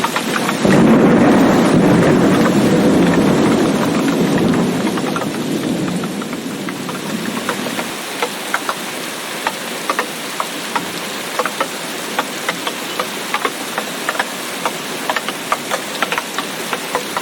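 Thunder rolls in suddenly about a second in, a low rumble that fades away over the next six seconds. Under it runs steady heavy rain with many sharp, close drops ticking.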